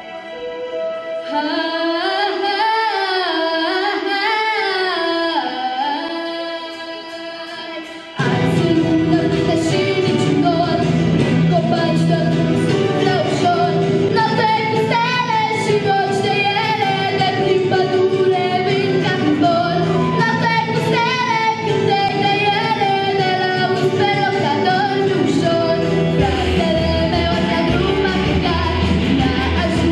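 A young girl singing a song into a handheld microphone over a recorded backing track. The accompaniment is light at first, then about eight seconds in the fuller backing with bass and a beat comes in and the music gets louder.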